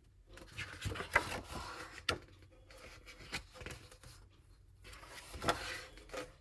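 Pages of a photo book being turned and handled: paper rustling and sliding, with a few sharp clicks or taps.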